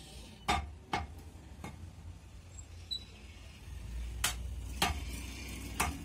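Butcher's cleaver chopping goat meat on a wooden tree-stump block: sharp single chops, three in the first two seconds, then a pause and three more from about four seconds in.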